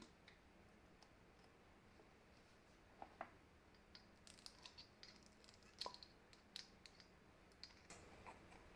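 Faint, scattered metallic clicks and clinks of small steel impact-driver parts, the spindle, gears and hammer assembly, being handled and fitted together by hand, starting about three seconds in and thickest in the second half.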